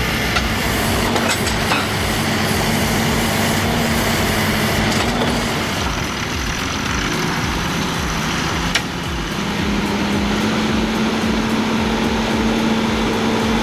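Heavy vehicle engine running steadily. Its note drops about six seconds in and rises again after about nine seconds, with a single sharp click just before the rise.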